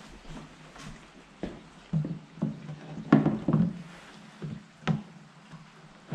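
Irregular knocks and clunks, the loudest cluster about three seconds in, from a motorcycle frame and engine being handled on a metal workstand.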